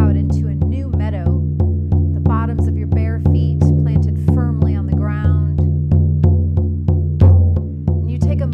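Hand-held frame drum struck in a steady, even beat, each stroke leaving a deep ringing boom.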